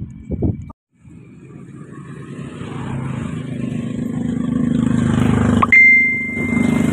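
A motor engine running and growing steadily louder, as if coming closer, with a single steady high-pitched tone sounding for about a second near the end.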